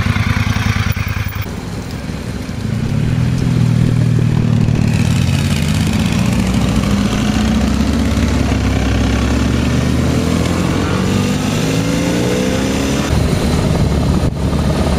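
Motorcycle engine running under way, its pitch climbing steadily over several seconds as it accelerates, then changing near the end.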